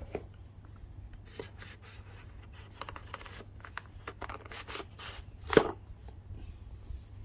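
Stiff paper card and cardboard packaging handled by hand: a run of short rustles and scrapes as a card insert is slid and lifted out of a box, with one louder scrape or knock about five and a half seconds in.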